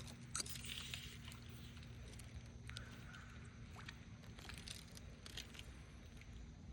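Faint rustling and scattered light clicks over a low steady hum, from someone moving and handling fishing gear.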